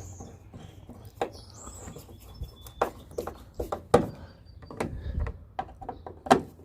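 Scattered clicks and knocks of a screwdriver against the truck's plastic tail light assembly as its Torx screws are tightened back in, with two sharper knocks about four and six seconds in.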